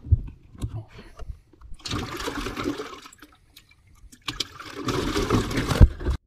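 Water sloshing and splashing in a bass boat's livewell in two bursts as a bass is put in, after a few knocks from the hatch lid. The splashing cuts off suddenly near the end.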